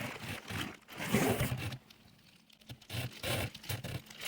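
A plastic bag of metal belt buckles being handled: crinkling plastic and scraping, in two bursts with a short pause around the middle.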